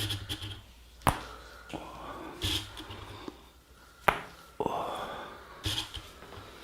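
Two sharp snaps about three seconds apart from the barber's hands working in a head and neck massage, with softer rustling between them.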